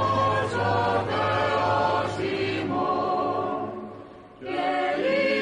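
Choir singing slow, held chords as background music. It fades briefly about four seconds in, then comes back on a new chord.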